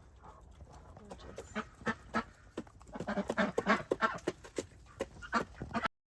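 Backyard chickens clucking in a run of short, rapid calls that grow busier a few seconds in. The sound stops abruptly just before the end.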